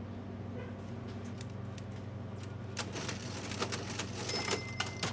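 Keys of an old push-button cash register clicking in quick succession from about three seconds in, over a low steady hum. A thin steady high tone joins in during the last second.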